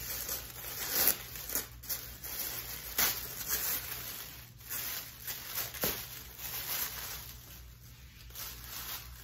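Cardboard subscription box being opened by hand, with tearing and crinkling of its packaging in irregular bursts.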